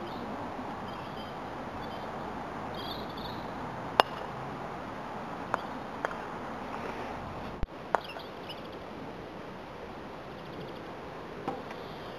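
Croquet balls clacking: one sharp, loud knock about four seconds in and several fainter clicks later. Behind them is steady outdoor wind noise and a few short bird chirps.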